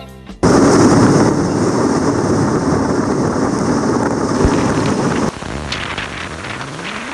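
Loud, steady roar of rushing water in a canyon, starting abruptly and dropping to a lower level about five seconds in.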